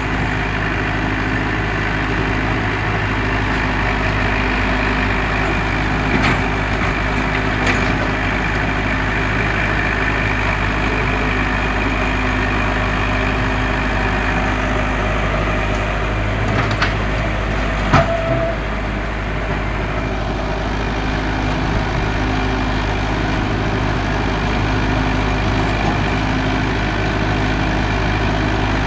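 Excavator engine running steadily under load, with a few sharp knocks, the loudest about 18 seconds in.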